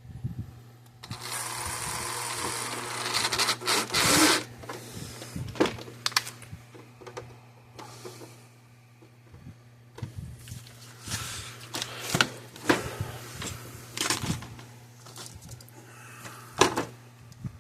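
Parts and tools being handled on a workbench: a few seconds of rustling noise about a second in, then scattered clicks and knocks, over a steady low hum.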